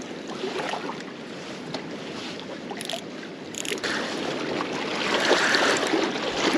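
Small lake waves lapping and splashing against breakwall rocks, with a couple of short clicks a few seconds in; the water noise gets louder about four seconds in.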